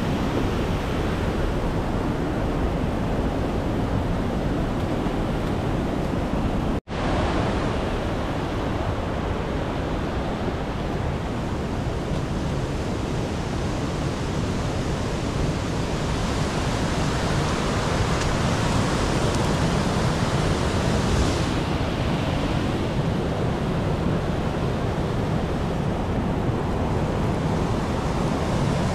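Steady rushing of flowing water from a stream, broken by a sudden brief dropout about seven seconds in.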